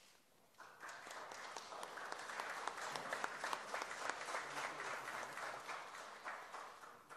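Audience applauding: the clapping starts about half a second in, builds, and dies away near the end.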